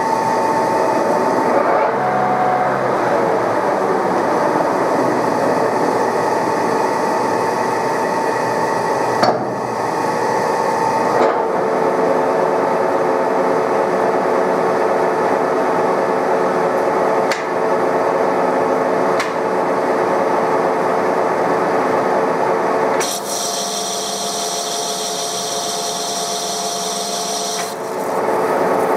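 TOS SN63B metal lathe taking a heavy roughing cut on a metal wheel hub: the spinning chuck and the indexable insert scraping off metal make a steady hiss with several steady whining tones. For a few seconds near the end the cut turns to a brighter, higher hiss.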